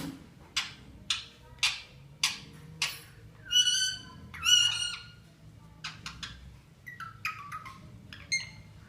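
Pet bird mimicking a phone ringtone. It gives a run of five sharp, noisy squawks about every half second, then two longer whistled notes, then a string of short chirps that step down in pitch like a ringtone melody.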